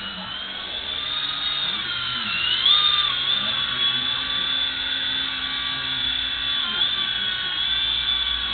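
Toy RC mini helicopter's small electric motor and rotors whining as it lifts off and hovers. The high whine climbs in pitch over the first second or so, dips and jumps back up about two and a half seconds in, then holds steady.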